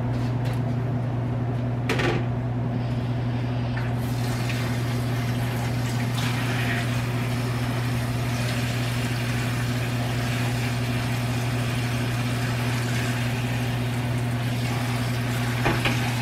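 Kitchen stove fan running on low with a steady low hum. About four seconds in, a steady rushing hiss joins it and carries on.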